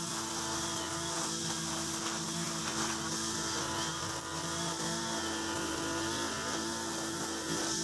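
Backpack brush cutter with a Mitsubishi TU43 two-stroke engine running steadily, its nylon line head cutting grass.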